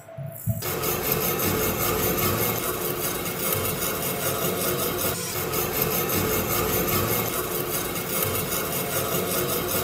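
Small steel wire brush scrubbing a rusty hammer head wet with foamy cleaner: a continuous, even scratching that starts about half a second in.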